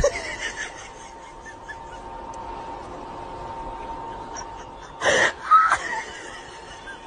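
Low room noise with a faint steady hum. About five seconds in comes a short, louder burst of high, gliding vocal sound.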